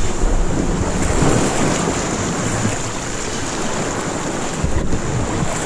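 Rough, choppy sea washing and splashing around a camera held at the water surface, with wind buffeting the microphone.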